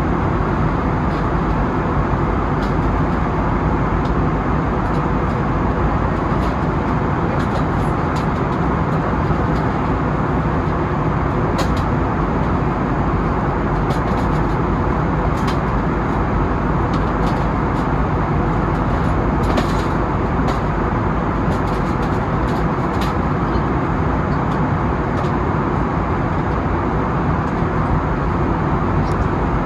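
Steady airliner cabin noise in an Airbus A320neo-family jet, engine and airflow noise heard from inside at a window seat, with a faint steady hum and a few faint ticks.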